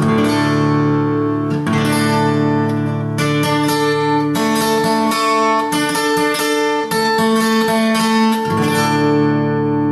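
Acoustic guitar in DADGAD tuning strumming a D-chord variation across all six strings, with the first and third strings fretted at the 7th fret and the second string at the 5th. It is struck a few times slowly, then strummed in a quicker rhythm through the middle, and left ringing near the end.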